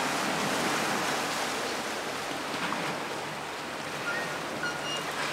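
Steady wash of small waves on a rocky shore, with a few brief high tones about four seconds in.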